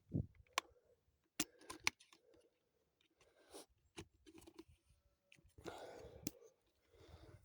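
Scattered sharp clicks with short crinkling, crunching rustles from snack packets being handled close up.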